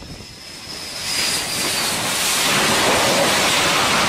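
Jet fighter's engines close by over a carrier flight deck: a high turbine whine fades out while a broad, loud rush of jet noise builds about a second in and holds through the rest.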